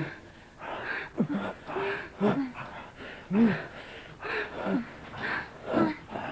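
A couple moaning and gasping during sex, short rising-and-falling breathy cries coming about twice a second.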